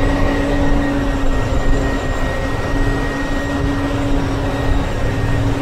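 Ashok Leyland sleeper coach on the move, heard from inside the front cabin: a steady drone of engine and road noise with a constant low hum.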